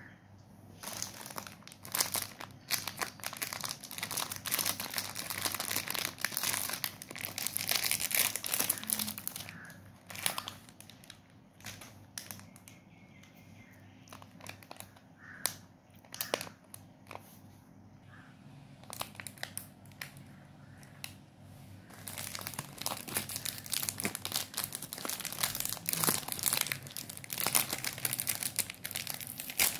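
Plastic cake packets crinkling as they are handled and torn open, the crackle thick at first, sparse for a while in the middle, then thick again near the end as a red Britannia Gobbles wrapper is pulled apart.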